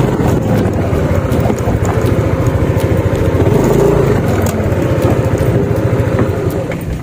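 Yamaha motor scooter's engine running as it rides along, with a rapid low pulsing and road noise, heard from the handlebars.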